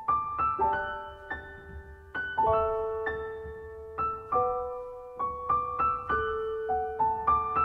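Gentle background piano music: single notes and chords struck one after another and left to ring and fade.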